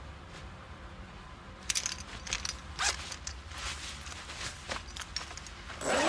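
Clothing foley: cloth rustling with small clicks as a woman undresses, then a louder rasp near the end as the zip on her top is pulled open.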